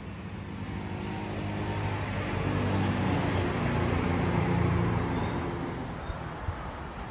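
A vehicle passing by: its engine hum and road noise swell over a few seconds, are loudest about four seconds in, then fade away.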